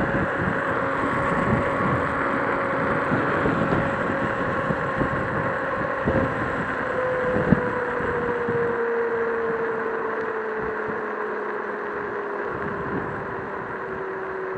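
Joyor S5 electric scooter riding along a street: a thin motor whine over the rush of wind on the microphone and tyre rumble. About halfway through the whine starts falling steadily in pitch and the rumble thins as the scooter slows, with one sharp knock in the middle.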